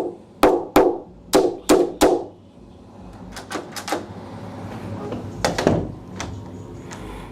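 A quick run of about six sharp knocks in the first two seconds, then lighter clicks and taps: a door latch being knocked and fitted into the edge of a wooden interior door.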